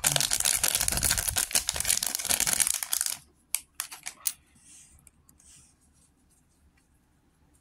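A LEGO minifigure blind bag being torn open and crinkled for about three seconds, followed by a few light clicks and faint rustling.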